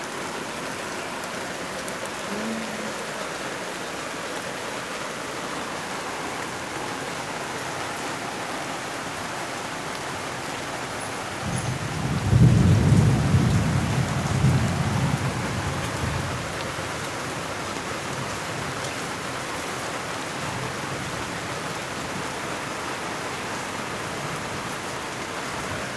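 Heavy rain falling steadily in a thunderstorm, with one roll of thunder about halfway through that rumbles low for a few seconds and fades.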